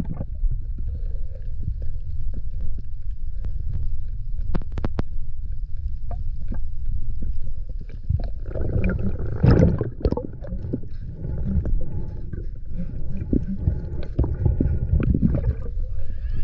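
Underwater rumbling and swishing of water as a hand fans away the sandy seabed, heard through the camera's underwater housing. It surges louder about nine to ten seconds in and again near fifteen seconds.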